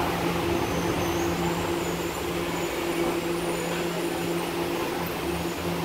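Red Tokyo Metro Marunouchi Line train creeping slowly along the platform, giving a steady hum with two constant tones over the general station noise.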